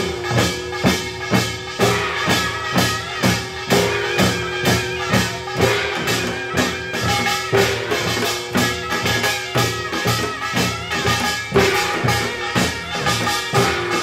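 Korean samulnori percussion ensemble of drums and gongs playing a fast, steady beat, over a taepyeongso (Korean double-reed shawm) holding long notes. The ensemble comes in with a loud stroke at the very start.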